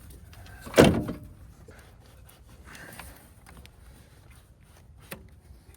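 One loud, sharp knock about a second in, then faint scraping and a small click near the end: hand-tool work on engine parts.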